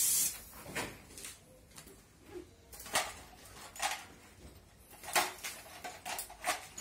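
Light, scattered clicks and knocks of tools and metal parts being handled, about five spread over several seconds.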